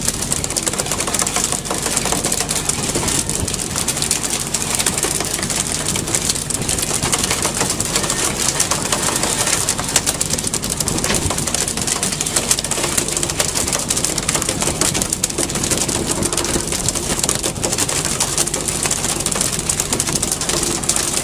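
Fishing boat's engine running steadily under wind and sea noise, with scattered short knocks.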